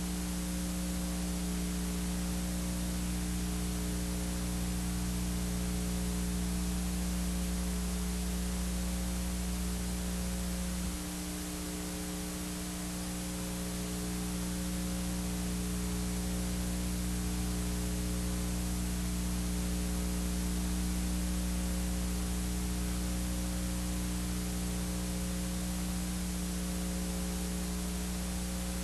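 Steady electrical hum with hiss, no other events; the low part of the hum shifts slightly about eleven seconds in.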